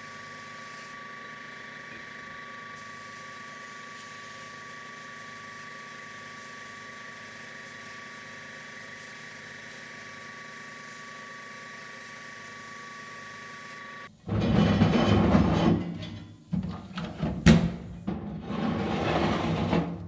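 Sandblasting gun in a blast cabinet, blasting rust off a small steel part: a steady hiss with a faint whistle. About fourteen seconds in, much louder music with heavy drums cuts in over it.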